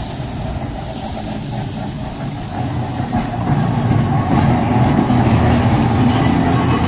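A vintage electric tram rolling past on street rails, a low rumbling that grows louder about halfway through as it comes close.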